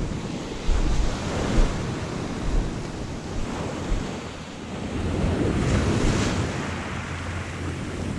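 Sea waves washing in the surf, with wind buffeting the microphone in low rumbling gusts.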